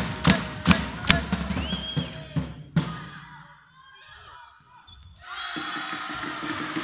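Volleyball supporters beat out a steady rhythm of about two and a half beats a second, which stops about a second in. A short whistle sounds, there are a couple more beats, then a quieter stretch during the rally. Crowd noise and cheering rise sharply about five seconds in as the point is won.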